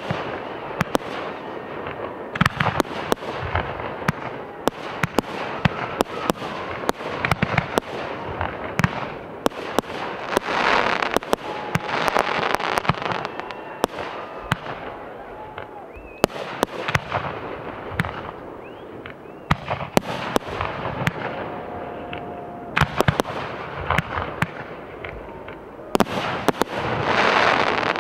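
A fireworks display of 1.3G aerial shells and cakes: a steady run of sharp bursts and reports, with dense stretches of crackle, loudest near the end.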